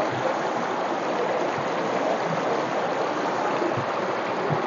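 Shallow mountain stream rushing over stones: a steady, even wash of water.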